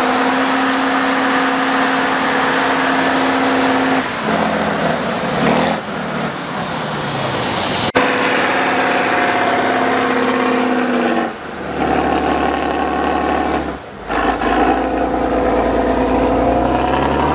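Heavy trial trucks' diesel engines running hard under load. A steady engine note changes abruptly every few seconds, and a deep rumble takes over in the last few seconds.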